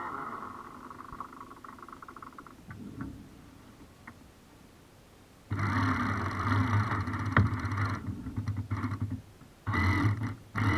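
The sail winch servo of a Robbe Smaragd RC sailboat runs in bursts as the sail is trimmed. It makes one longer run of about two and a half seconds a little past the middle, then two short bursts that start and stop abruptly near the end. A fainter whirr is heard in the first two seconds.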